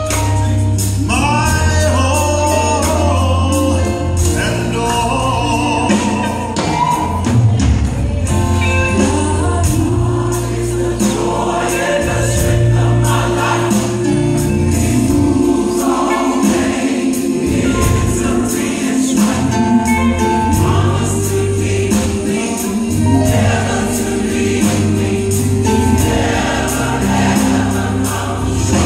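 Gospel choir singing with a woman soloist on microphone, over a low bass line that moves in steps and a steady beat.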